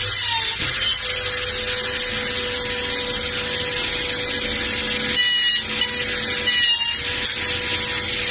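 Homemade three-axis CNC router running, its spindle motor giving a steady whine over a high hiss. About five and six and a half seconds in there are two short, louder bursts with shifting pitch as the machine moves.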